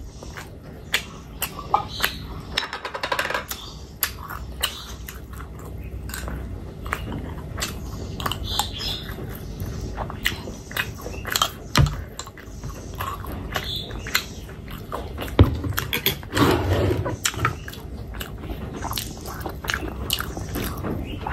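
Close-miked chewing and wet mouth smacks of a person eating oily pork pickle with rice, with many short, irregular clicks.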